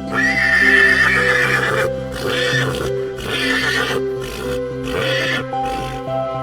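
Horse whinnying: one long high call, then about four shorter pulses that stop about five and a half seconds in, over soft background music.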